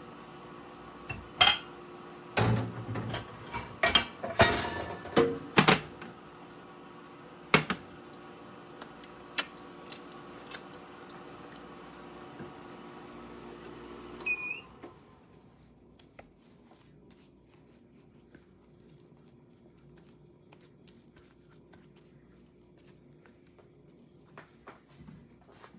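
Dishes and utensils clinking and clattering over a steady machine hum. The hum cuts off about halfway through with a short electronic chirp, leaving only a few faint clicks.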